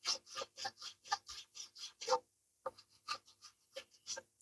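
Small needle file rasping back and forth over glued-in toothpick plugs in a guitar headstock's tuner screw holes, about four quick strokes a second, thinning to a few scattered strokes about halfway through.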